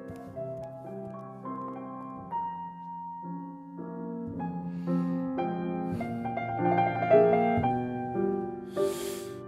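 Classical-style piano music, flowing note to note and growing fuller and louder toward the middle, with a short rush of hiss near the end.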